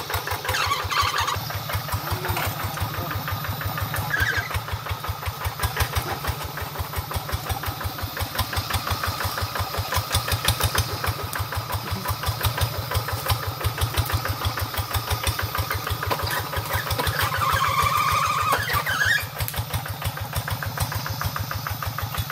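Single-cylinder diesel engine of a two-wheel hand tractor running with a steady, rapid chugging beat while the machine is worked over rough ground, growing louder for a couple of seconds about three-quarters of the way through.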